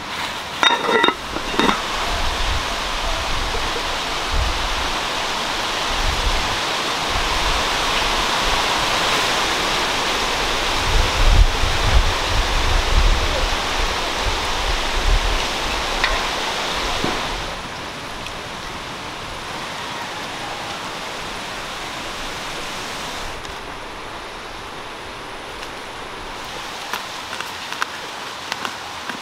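Wind rushing through forest trees, with low rumbling gusts hitting the microphone. A little past halfway it drops to a quieter, steady rush.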